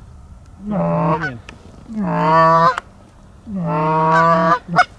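Hand-blown Canada goose call sounding three loud, drawn-out honks, each holding a low note and then breaking upward at the end, to call a single goose in to the decoys.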